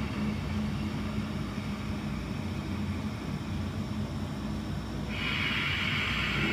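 Ujjayi breath: slow breathing through a narrowed throat with the mouth closed, heard as a soft steady hiss that grows clearly louder about five seconds in. A low steady hum runs underneath.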